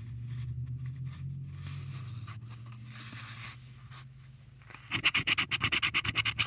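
A coin scratching the latex coating off a lottery scratch-off ticket: faint scraping at first, then a fast run of short, loud strokes near the end, over a low steady hum.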